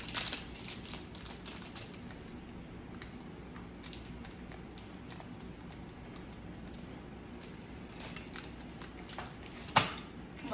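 Plastic candy-bar wrapper crinkling and rustling as a chocolate bar is unwrapped, densest at the start, with scattered crinkles and a sharp knock near the end.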